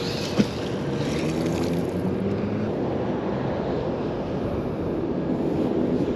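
Steady wind noise on the microphone with the hum of a passing vehicle's engine in the first few seconds, and a single short knock about half a second in.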